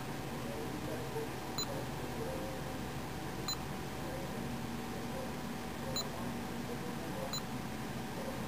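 Nikon Coolpix S230 touchscreen camera giving its operation beeps as menu items are tapped: four short, high beeps at uneven intervals, over a faint steady hum.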